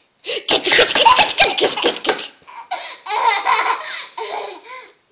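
Baby laughing hard in two long fits, the first louder than the second.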